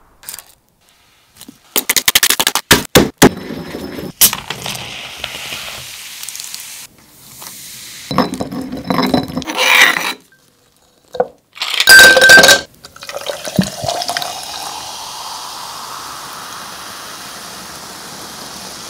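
Food preparation with no talk: sharp crisp clicks, then strawberries ground to a paste in a stone mortar with a pestle, and a loud clink about twelve seconds in. Near the end, carbonated lemonade is poured into a glass over the strawberry paste and fizzes, the pitch of the pour rising steadily as the glass fills.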